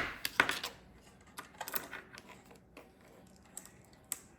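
Small plastic Lego pieces clicking and clattering as they are handled and sorted through: a quick run of sharp clicks at the start, then scattered lighter clicks.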